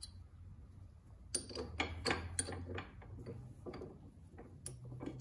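Ratcheting wrench clicking in short, irregular runs as the nut on a Corvette sway bar end link is turned, with light clinks of metal tools. The clicking starts a little over a second in.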